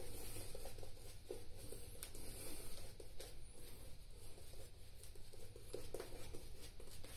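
Shaving brush swirled over a lathered face and beard stubble, making soft, irregular scratchy brushing strokes as the lather is worked back on.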